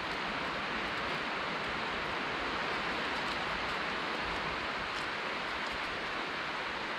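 Steady, even hiss of distant surf breaking along the shoreline.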